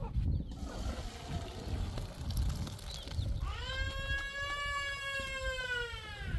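A cat gives one long meow, about three seconds long, starting about halfway through, with a slight rise in pitch at the start and a fall at the end.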